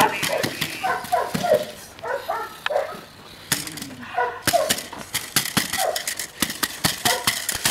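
Belgian Malinois-type working dogs barking in short bursts during bite work on a padded sleeve, with sharp clicks and knocks among the barks and a brief lull about two seconds in.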